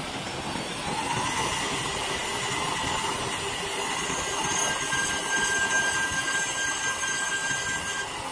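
CNC wood lathe running with a steady machine noise and several constant tones; a thin high whistle joins about halfway through.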